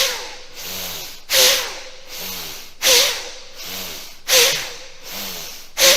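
A rhythmic hissing swish that repeats about every second and a half, each strong surge followed by a softer pulse.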